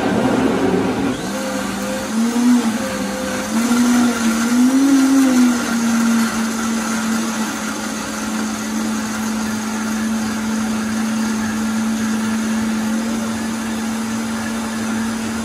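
Vita-Mix Super Total Nutrition Center blender running loud, blending a smoothie of vegetables, frozen fruit and ice cubes. Its motor pitch wavers between about two and five seconds in, then holds steady.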